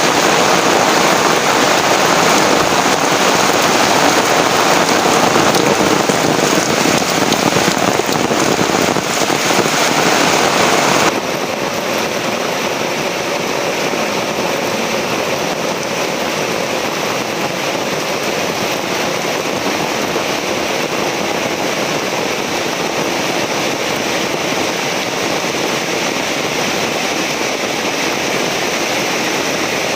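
Heavy rain pouring steadily. About eleven seconds in, the sound drops abruptly to a quieter, duller steady rain.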